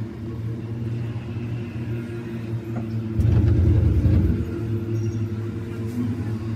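Steady low, humming drone of a cable-car gondola cabin travelling along its cable. About three seconds in, a louder low rumble swells for about a second, then the steady drone returns.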